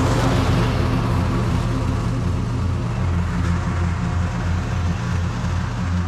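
Toro TimeCutter SS4260 zero-turn lawn mower running steadily while mowing, its engine note wavering a little as it works.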